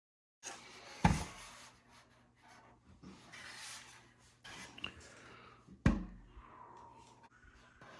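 Handling and workshop noise: two sharp knocks about five seconds apart, with softer rubbing and scraping between them.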